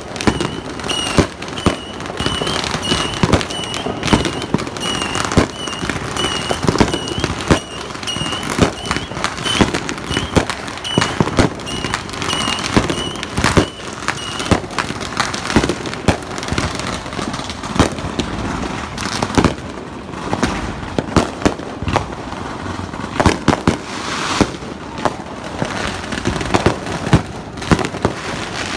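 Fireworks going off in a dense series of bangs and crackles from aerial bursts and firecrackers. For the first half a high chirp repeats steadily, roughly every half second or so, then stops.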